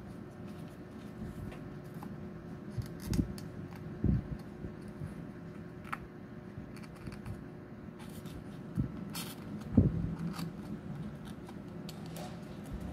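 Thin printed card rustling and creasing as fingers fold and press a paper dinosaur finger puppet together, with a few soft knocks of the card against the hands.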